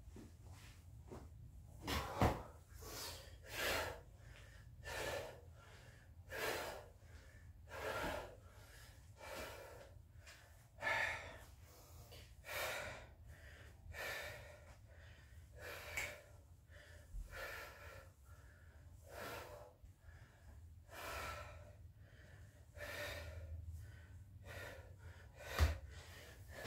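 Heavy, rhythmic breathing of a man doing burpees: a hard gasp or blow about every second and a half as he works through the set. Two heavier thuds of hands or feet hitting the floor stand out, one about two seconds in and one near the end.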